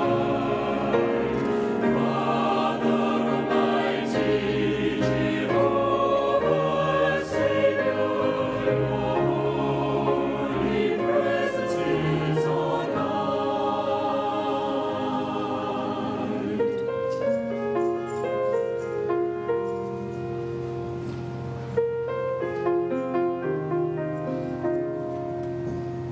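A mixed choir sings a hymn with piano accompaniment. About two-thirds of the way through, the singing drops away and the piano plays on in separate, clearly spaced notes.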